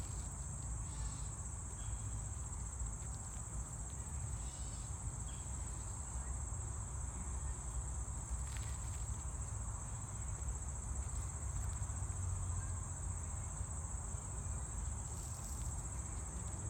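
A steady, high-pitched chorus of insects sings without a break, with a low rumble underneath.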